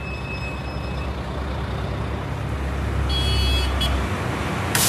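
Heavy truck's engine running at low speed, a steady low rumble that grows louder. A brief high-pitched toot sounds about three seconds in, and a sudden loud rush of noise starts near the end.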